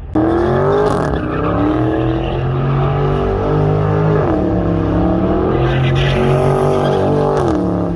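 A Mopar V8 engine revved hard and held high in the revs, its pitch dipping briefly about four seconds in and falling again near the end.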